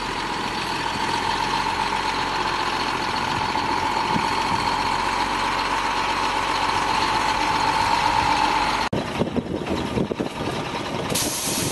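Dump truck engine running steadily, with a constant whine over it. About nine seconds in it cuts off abruptly, replaced by uneven, gusty noise.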